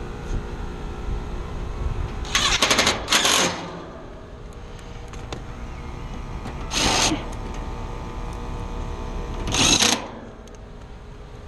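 Rooftop heat pump condenser unit running with a steady hum. Three short, loud scraping noises come over it, a double one a few seconds in, then one near the middle and one near the end.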